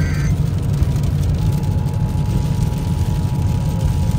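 Steady car-cabin road rumble while driving in rain. A chord of high beeping tones cuts off just after the start, and about a second and a half in a steady two-tone alert sound begins, the attention signal ahead of a severe thunderstorm warning.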